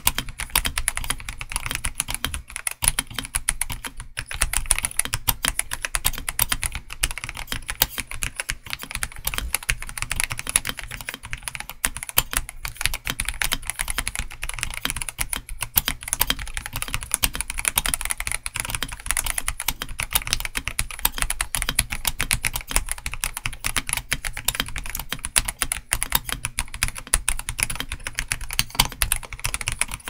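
Continuous fast typing on a RoyalAxe L75 mechanical keyboard with Gateron G-Pro Yellow linear switches and PBT keycaps: a dense, steady run of keystroke clacks.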